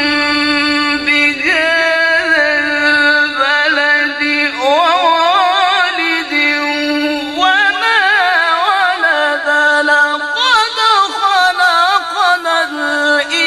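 A male qari chants Islamic recitation in a very high voice, in one long unbroken melismatic line with heavy vibrato. The pitch holds steady at first, steps up a few seconds in and climbs higher about halfway.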